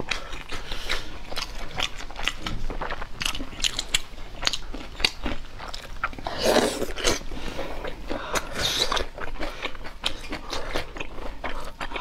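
Close-miked eating of braised meat: biting and chewing with many wet mouth clicks, and two louder bursts about six and a half and nine seconds in.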